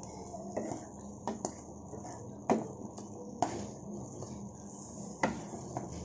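Slotted spatula stirring chicken pieces in a nonstick frying pan, scraping and knocking against the pan in a scatter of sharp taps, the loudest about two and a half seconds in.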